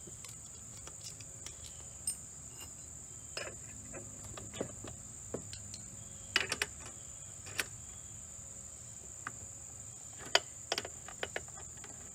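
Scattered light metallic clicks and taps as hex-head screws are worked loose from the rollers of an automatic dynamic cone penetrometer, over a steady high-pitched insect drone.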